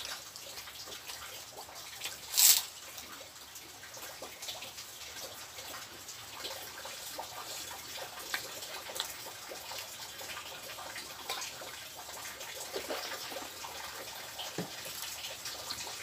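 Close-miked eating sounds: wet chewing and small mouth clicks as a man eats rice and fried fish with sambal by hand. One short, much louder noise comes about two and a half seconds in.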